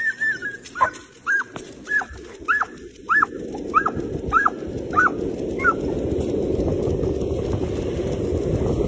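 A dog yelping excitedly as it is let go to run: about ten short, high yelps in quick succession that stop about six seconds in. A rushing noise builds up under them from about three seconds in.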